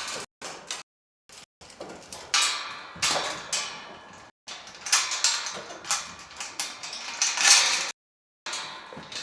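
A rapid run of sharp clanks, knocks and scrapes from barn hardware being handled during feeding, each one dying away quickly.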